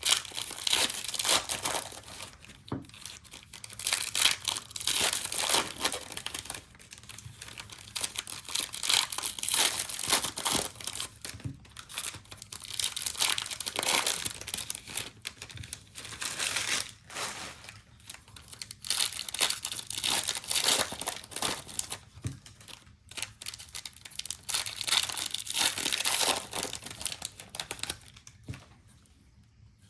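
Foil trading-card pack wrappers crinkling and tearing as blaster-box packs are ripped open, in repeated bursts that die down near the end.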